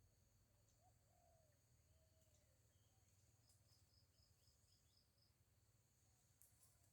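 Faint forest birdsong over a steady high insect hum: a few low, soft calls in the first couple of seconds, then a quick run of about eight high notes, around five a second, midway through.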